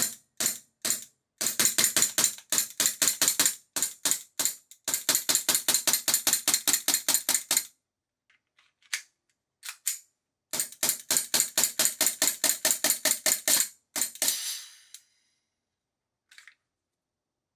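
VFC Glock 42 gas blowback airsoft pistol firing fast semi-automatic shots, about six a second, in three long strings with a few single shots between, each a sharp pop. A short hiss trails the last string.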